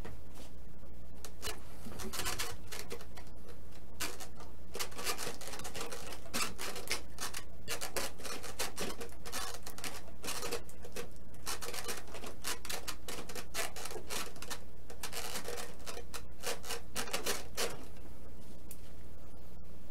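Irregular dry rubbing and scraping in quick short strokes as the model plane's vertical fin is handled and worked into its glued slot on the fuselage, stopping near the end. A steady low hum runs underneath.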